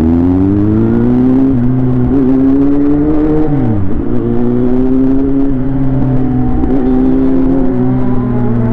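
An inline-four sport motorcycle engine running under way. Its note holds steady, drops sharply about three and a half seconds in as at a gear change, then settles again.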